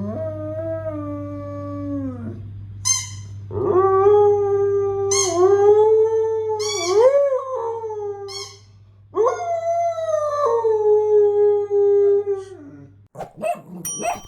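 A husky howls three long times, answering short high squeaks from a squeaky toy. The howls get louder each time, with a few clicks near the end.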